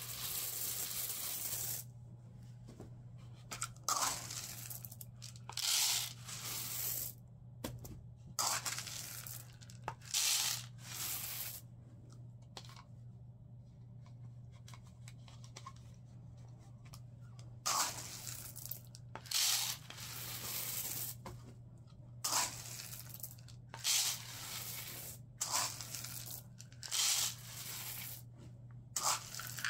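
Whole dried corn kernels scooped from a plastic bucket and poured through a plastic funnel into a cotton flannel tube: about a dozen rattling pours, each a second or two long, with short pauses between.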